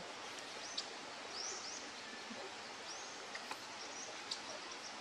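Outdoor background ambience: a steady hiss with a few faint, short, high chirps, such as birds make.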